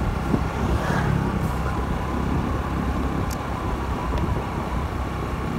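Motor scooter running steadily at cruising speed, with road and wind noise, heard from the rider's seat.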